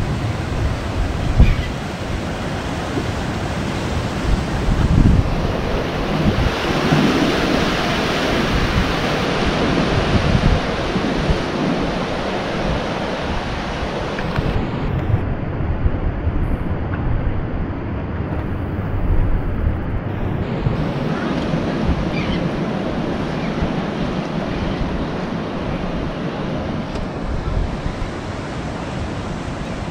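Ocean surf rolling in steadily, with wind gusting on the microphone; the wash swells for a few seconds about a third of the way in.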